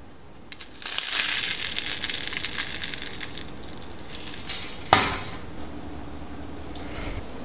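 Burnt toast crushed in a hand: a dry crackling crunch for about three seconds, tailing off. Then one sharp knock about five seconds in, the loudest sound.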